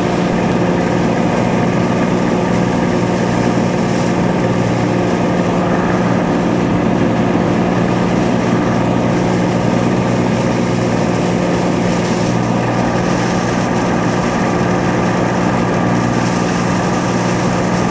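Cessna 182T's six-cylinder Lycoming IO-540 engine and propeller droning steadily, heard inside the cabin, under a steady hiss of heavy rain on the airframe.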